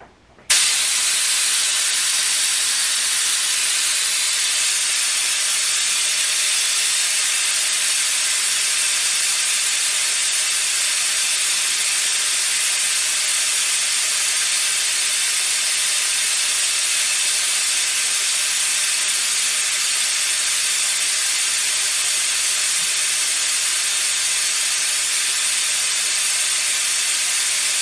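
Compressed air hissing steadily out of a held-open air blow gun on a hose from a Northstar 8-gallon air compressor, bleeding down the tank pressure. It starts abruptly just under a second in and holds steady.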